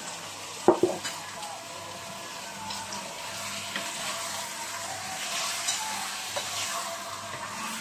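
Chicken pieces sizzling in a pot on a gas stove while being turned and stirred with a wooden spatula, with a steady hiss of frying. Two sharp knocks, about a second in, are the loudest sounds, followed by lighter scraping clicks.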